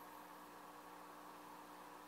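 Near silence: room tone, a faint steady hiss with a low steady hum.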